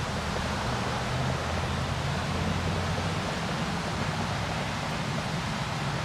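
Steady breeze outdoors: a constant hiss with a low rumble of wind on the microphone.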